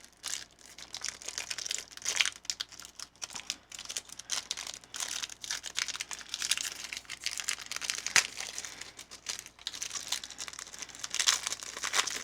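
Foil wrapper of a Pokémon booster pack crinkling and crackling in irregular bursts as it is handled and opened by hand, loudest about two seconds in, around eight seconds, and near the end.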